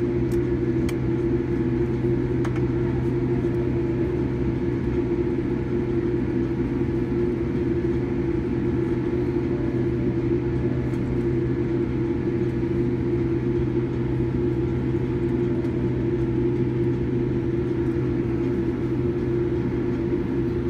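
Steady cabin hum inside a Boeing 787-8 taxiing slowly to the gate, its engines at idle, with several steady tones in the drone. A few faint clicks come in the first seconds.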